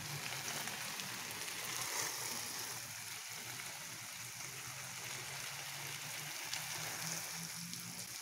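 A stream of water from a hose splashing steadily through a shrub's leaves onto the paved ground, an even rushing hiss.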